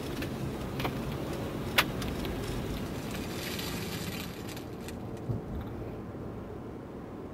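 Steady low rumble and rustling from a handheld camera being carried through snowy woods, with a few sharp clicks: one loud click about two seconds in, and a smaller knock about five seconds in.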